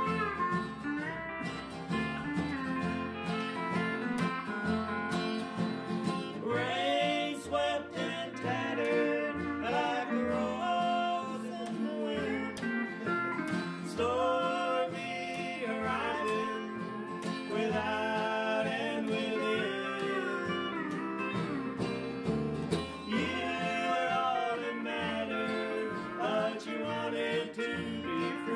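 Country song played on acoustic guitar, upright bass and pedal steel guitar, with singing. The steel guitar's notes slide and bend in pitch.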